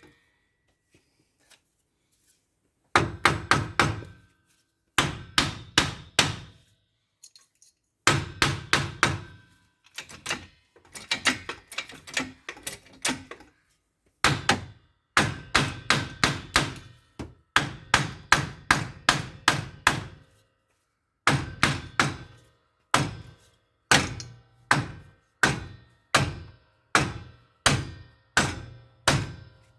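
Hammer blows on metal, struck about three to four times a second in runs with short pauses between, each blow ringing briefly. The first run starts about three seconds in.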